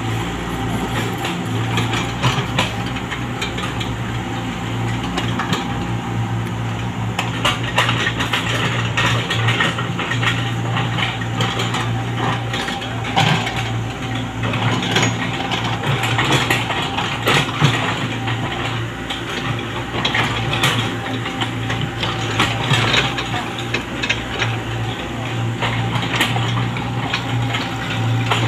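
Komatsu PC75UU mini excavator's diesel engine running steadily while it digs, with frequent short clanks and knocks from the bucket and arm working the soil.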